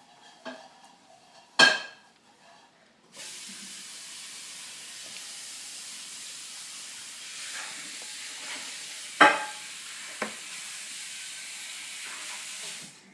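A steady hiss that starts suddenly about three seconds in and cuts off just before the end. A few sharp knocks, the loudest about a second and a half in and about nine seconds in.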